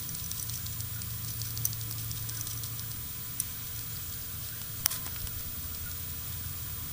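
Goldendoodle puppy moving about in grass: a light crackling rustle with three sharp clicks over a steady low hum.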